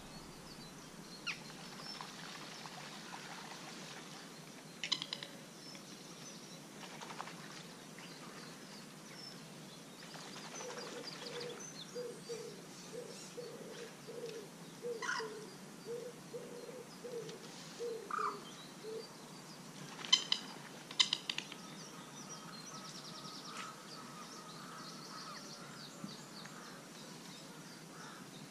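Birds calling around a lake: scattered high chirps over a faint outdoor hush, with a run of about a dozen low, evenly spaced notes through the middle. A few sharp clicks stand out, loudest about two thirds of the way in.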